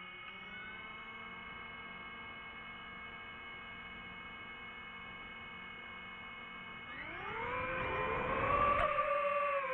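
RC airplane's motor whining steadily at low throttle, then about seven seconds in the pitch climbs sharply and it gets louder as the plane is throttled up for takeoff, settling into a steady high whine with propeller noise.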